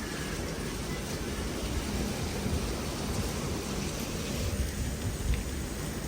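Snowstorm wind blowing steadily: a rushing noise with a low rumble that swells a little about five seconds in.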